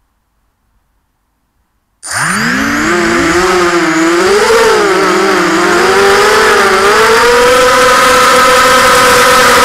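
A quadcopter's electric motors and propellers, heard from on board at very close range. After about two seconds of near silence they spin up abruptly into a loud whine that rises sharply, wavers up and down in pitch with the throttle through takeoff, and steadies in the last few seconds.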